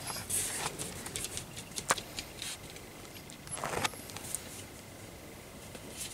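Light clicks and scuffs of a husky puppy moving about on a wooden floor, with a sharp click about two seconds in and a brief louder scuffle a little before four seconds.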